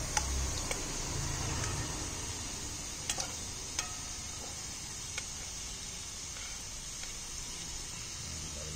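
Pieces of steak sizzling in a wok over a charcoal brazier, a steady high hiss. Metal tongs click against the pan several times, mostly in the first half.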